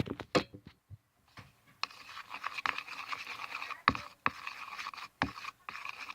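Chilled soap slime being mixed and worked in a bowl: irregular scraping and squishing with several sharp clicks or taps along the way.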